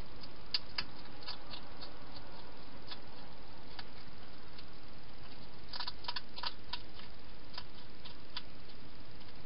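Wild hedgehog eating from a bowl inside a clear plastic feeding box: irregular soft clicks of chewing and feeding, with a quick run of them about six seconds in, over a steady hiss.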